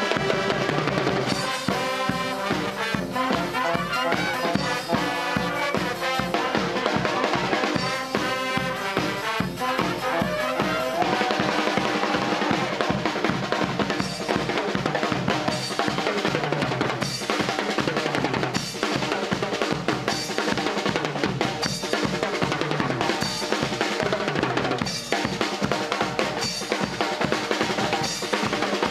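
Brass band music with a steady drum beat: a horn melody over bass drum and snare for the first ten seconds or so, then mostly drums.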